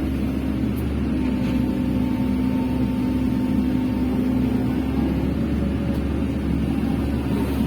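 Excavator's diesel engine running steadily, with a faint whine over it from about a second in until a few seconds later.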